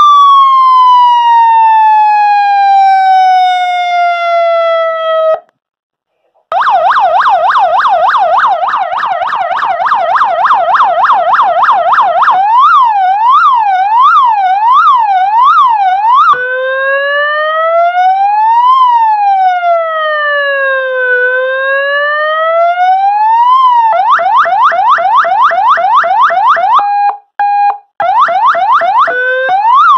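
A 200-watt electronic police siren played through a cone speaker, cycling through its tones. A wail winds down, then after a short break come a fast yelp, a quicker up-and-down warble, and one slow wail rising and falling. Near the end the fast yelp returns, broken by two brief steady tones.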